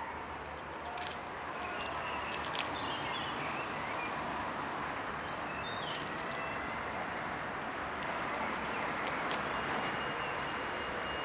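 Steady outdoor background hiss and rumble that grows slightly louder, with a few faint bird chirps and scattered light clicks.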